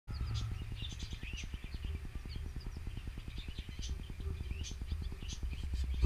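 Canaries giving many short, high chirps and call notes, scattered and overlapping, over a steady low rumble.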